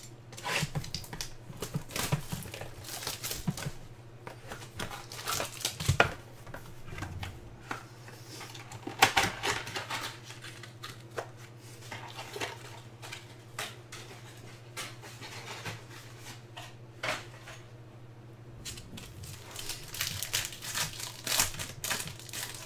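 Foil trading-card pack wrappers crinkling and tearing open, with cards being handled, in irregular spells of rustling and crackling. A low steady hum runs underneath.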